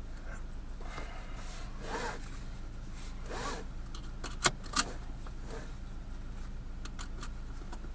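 Handling noises: a few soft rustles and two sharp clicks about halfway through, over a steady low hum.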